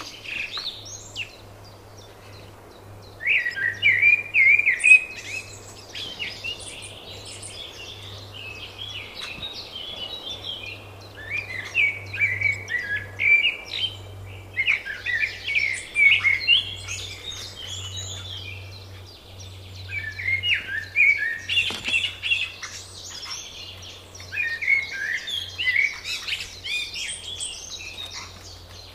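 Songbirds singing in spring: about five bright, rapid song phrases of a few seconds each, with short pauses between them.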